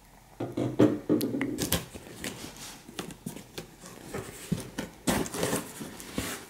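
Cardboard shipping box being opened by hand: flaps and packing scraping and rustling, with many sharp clicks and knocks. A denser rustle comes about five seconds in.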